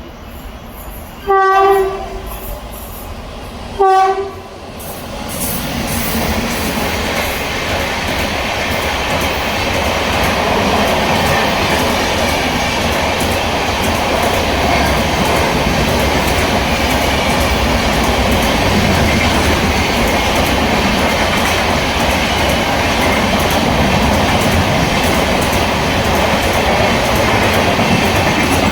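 A WAP7 electric locomotive sounds two short horn blasts, then the express train runs past at speed, its coaches rattling steadily over the rail joints.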